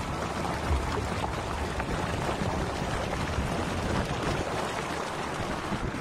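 Water from a tubewell outlet pipe gushing and splashing steadily into a concrete tank.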